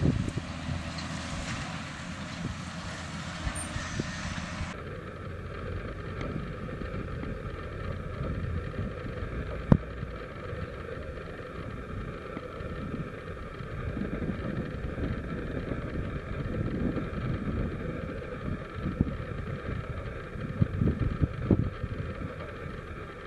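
Farm machinery engines running in a field: a tractor and a bale stacker, with wind buffeting the microphone. The sound changes abruptly about five seconds in, and there is a single sharp click near ten seconds.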